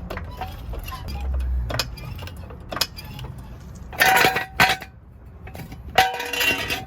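Metal clanking and rattling from a steel jack stand and floor jack being handled as the car is lowered: a short low rumble a little over a second in, then several loud ringing clangs, the loudest about four and six seconds in.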